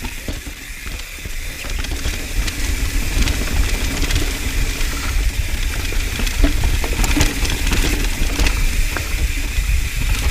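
Mountain bike descending a dirt trail, heard through the rider's action camera: a steady low rumble of wind and tyres on the microphone, with frequent sharp clicks and rattles from the bike over the rough ground.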